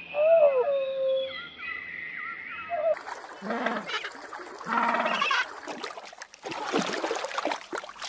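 Whistled bird calls gliding up and down over a steady high tone, then, from about three seconds in, water splashing with repeated harsh, low-pitched calls from birds bathing in the water.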